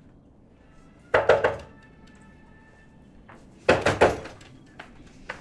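Knocking on a door: two rounds of several quick raps, the second about two and a half seconds after the first, over faint background music.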